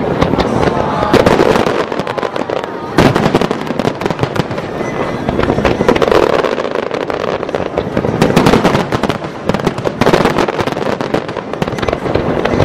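Fireworks display: aerial shells bursting in a dense, unbroken barrage of sharp bangs and cracks, one on top of another.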